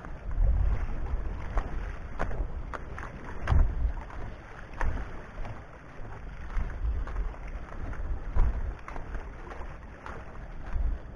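Wind buffeting the microphone in low, gusty rumbles, with irregular sharp clicks and knocks of footsteps on the breakwater's boulders.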